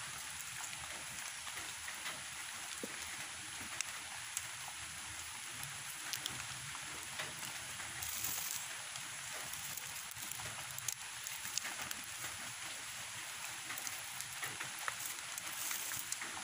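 Light rain hissing steadily, with scattered small clicks and rustles as plastic strapping is pulled and tied around bamboo slats.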